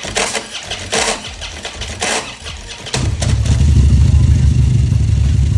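Harley-Davidson Road Glide V-twin on a cold start: the starter cranks with noisy bursts about once a second, then the engine catches about three seconds in and runs loudly at a steady idle.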